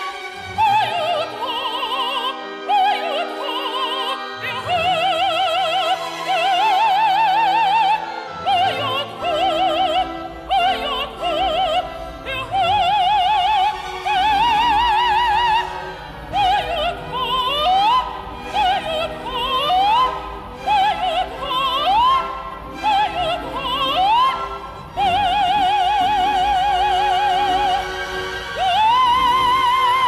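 Operatic music: high voices singing long notes with a wide vibrato over an orchestra, with a series of short upward-leaping calls in the middle.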